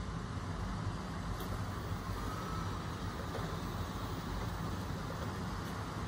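Dreame D10 Plus Gen 2 robot vacuum running on a tile floor: a steady hum of its suction fan and drive motors with a low rumble.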